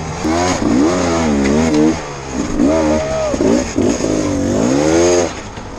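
Dirt bike engine revving in repeated bursts, its pitch rising and falling several times as the throttle is blipped to climb over rocks.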